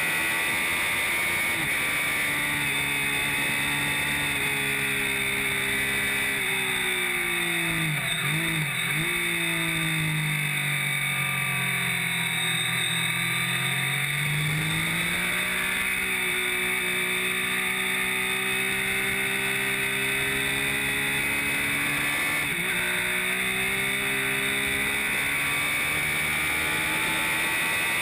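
Triumph Street Triple R's 675 cc three-cylinder engine on a track lap, over steady wind rush on the microphone. The engine note falls as the bike slows, with quick downshift blips about eight seconds in, stays low through the bend, then climbs again as it accelerates out. There is one more brief gear-change blip a little over three-quarters of the way through.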